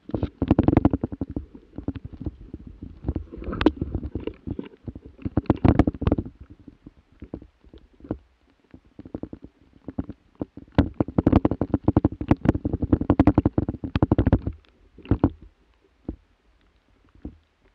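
Spruce branches rustling and scraping against a rifle-mounted camera as it is carried through dense forest, in three long spells of close, rapid rustling with short quiet gaps. A few single knocks follow near the end.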